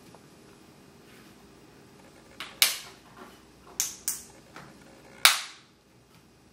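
Plastic screen bezel of a Dell Inspiron Mini 10 netbook being pressed back onto the lid, its clips snapping into place: about five sharp snaps from about two and a half seconds in, the loudest about five seconds in.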